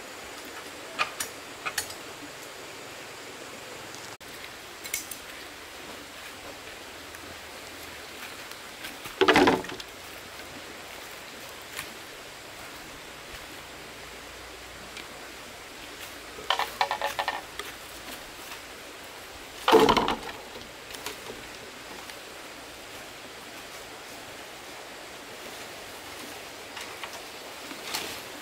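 Steady background hiss with a few sharp knocks: a loud one about nine seconds in, a short rattling run a little past halfway, and another loud knock a few seconds later.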